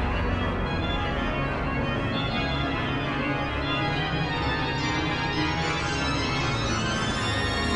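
The great pipe organ of Saint-Eustache, played in a dense, fast improvised postlude: quick runs across the manuals over sustained deep bass notes, continuous and full.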